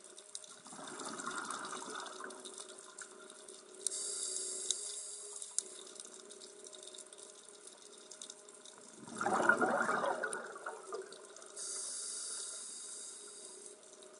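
Scuba diver breathing through a regulator underwater: two bubbling exhalations, about a second in and about nine seconds in, each followed a couple of seconds later by the hiss of an inhalation.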